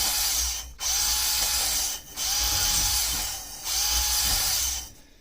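Cordless drill spinning a spring-loaded cylinder hone inside a motorcycle cylinder barrel, the hone stones scraping the bore. It runs in stop-start bursts of about a second with short pauses, a brief whine as each burst starts, and dies away near the end, on a drill battery that is running flat.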